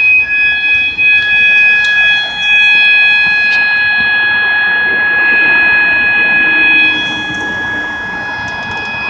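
System Sensor MA/SS-24 fire alarm horn sounding a continuous steady tone of about 800 Hz: the building's fire alarm going off. It gets a little quieter for the last couple of seconds.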